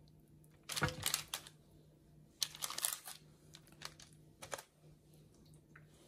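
Hands handling seasoned Cornish hens on a parchment-lined baking tray: a few short bursts of crinkling paper and handling noise, over a low steady hum.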